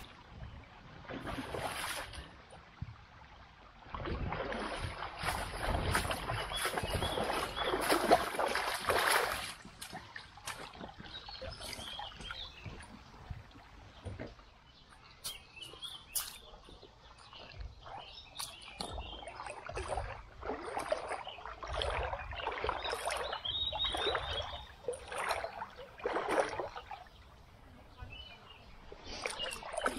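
Bicycle and its two-wheeled camper trailer wading through a shallow stream, with water splashing and sloshing around the wheels in uneven bursts.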